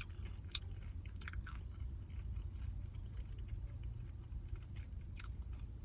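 A person chewing and biting food, with a few short sharp clicks in the first second and a half and one more near the end, over a steady low hum.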